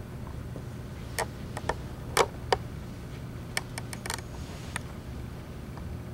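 Scattered light clicks and knocks, about ten of them, as a plastic nursing mannequin's legs and gown are handled and positioned on a hospital bed, over a steady low hum.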